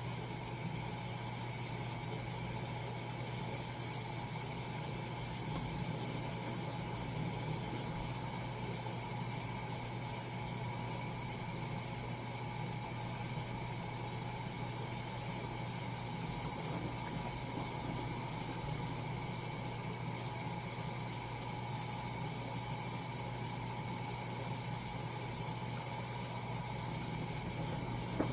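Washing machine running with a steady, unchanging motor hum.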